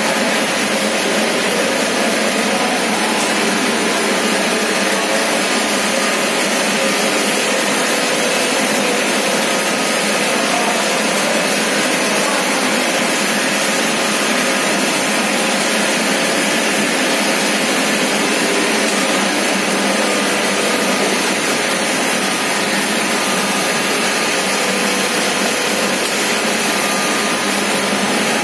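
Olive oil mill machinery running steadily: a loud, continuous, even din with a few faint steady tones and no breaks.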